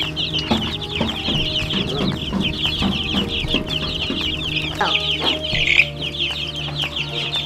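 A brood of chicks and ducklings peeping continuously, a dense chorus of many fast, high, downward chirps overlapping one another, with a steady low hum underneath.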